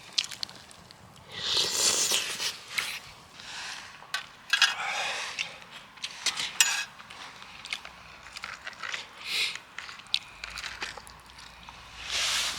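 Irregular scraping and rustling, broken by sharp clicks and knocks: handling sounds.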